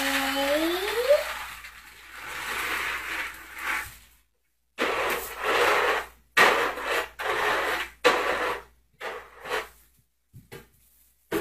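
Dry dog kibble pouring and rattling out of a plastic bucket onto a hard floor: one long pour, then a run of short shakes. A brief rising vocal sound at the very start.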